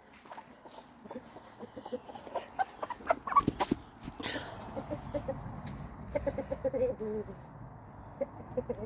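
Domestic hens clucking in runs of short, quick notes, clearest about six to seven seconds in. A few sharp knocks and rustles come about three seconds in and are the loudest sounds.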